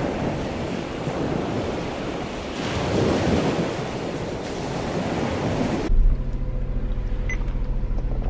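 Surf washing onto a sandy beach, with wind, swelling about three seconds in. About six seconds in it cuts abruptly to the steady low hum inside a car's cabin.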